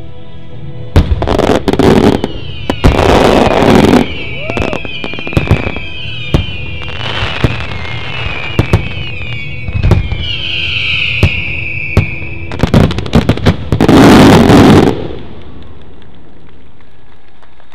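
Aerial fireworks display: shell bursts and rapid single-shot reports, with dense loud volleys about a second in, around three to four seconds in and again near fourteen seconds. A high wavering whistle runs through the middle stretch. The firing stops abruptly about fifteen seconds in.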